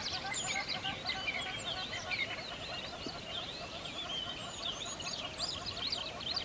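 A dense chorus of many birds chirping and singing at once: overlapping high, quick chirps and trills, over a lower rapid chattering that runs on underneath.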